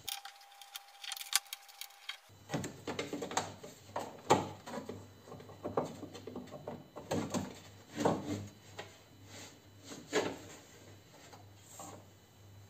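Hands working inside a stripped Peugeot 407 front door on the window regulator and glass guide: irregular knocks, clicks and scrapes of plastic and metal parts being pushed and shifted to get the glass back into its rail.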